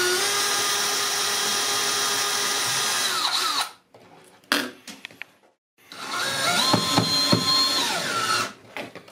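Cordless drill-driver driving screws to mount electronics: a steady motor whine that winds down about three and a half seconds in, then a second run of about two and a half seconds, with a few sharp clicks partway through, before it stops.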